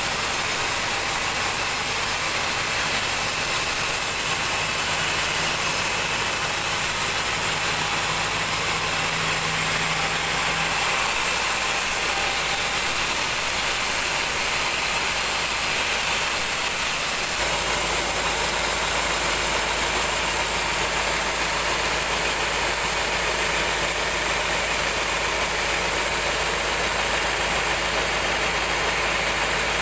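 Large band sawmill running, its band blade cutting lengthwise through a big mahogany log: a steady, loud mechanical drone with a high hiss. The low hum changes about two-thirds of the way in.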